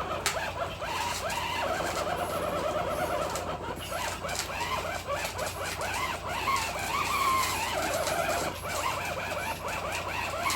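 Axial Bomber RC crawler straining to pull a weighted sled: its electric motor and geartrain whine continuously, wavering up and down in pitch as the load changes.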